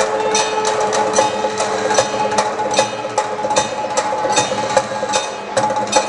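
Marathi Koli folk dance music: a quick, even percussion beat of sharp clicks over a held note.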